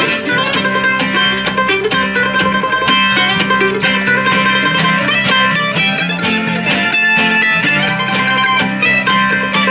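Acoustic string band playing an instrumental break without singing: a quick picked lead on a plucked string instrument over acoustic guitar backing.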